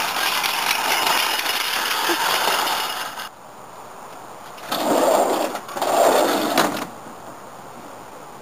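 A metal shopping cart rattling steadily as it is pushed over asphalt for about three seconds. It stops suddenly, and then come two short, louder rattles, about a second apart, as a sliding glass door is tugged at.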